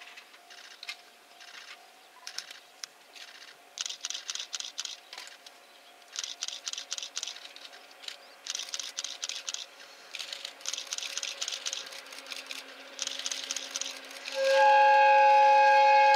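A train approaching, heard as bursts of rapid, faint ticking with a faint steady tone underneath. About a second and a half before the end, the locomotive sounds a loud, steady whistle blast of several tones together.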